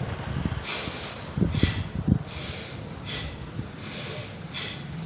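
A person breathing out sharply through the nose, four short exhales about a second and a half apart, with a couple of low bumps about two seconds in.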